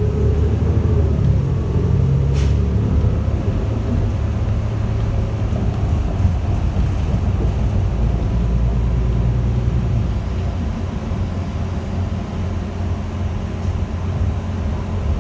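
Cabin rumble of a 2020 New Flyer Xcelsior XN40 bus driving, from its Cummins L9N natural-gas engine and Allison transmission, with a faint whine that climbs briefly near the start. A brief click sounds about two and a half seconds in, and the rumble eases a little after about ten seconds.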